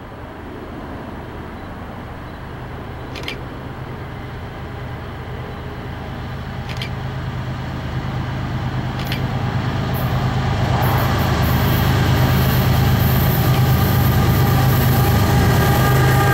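Diesel locomotives of an approaching Union Pacific freight train, a steady low engine drone growing louder as the train nears. From about ten seconds in, higher-pitched tones and a hiss from the wheels on the rails join in.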